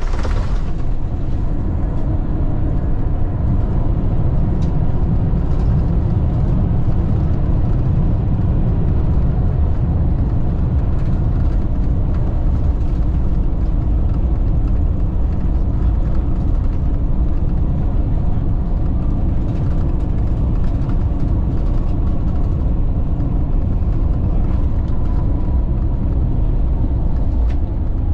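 Airbus A350-1000 touching down and rolling out on the runway, heard from inside the cabin: a loud, steady low rumble of wheels and engines that starts suddenly at touchdown, with a faint whine slowly falling in pitch near the end.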